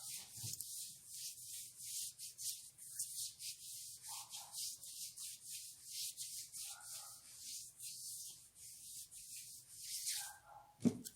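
Hands rubbing body cream into skin in quick, repeated soft strokes, about three a second. A short thump near the end.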